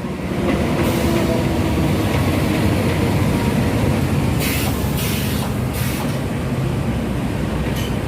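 A train running past close by, a steady heavy rumble that swells about half a second in and holds. Three short hissing bursts come about halfway through.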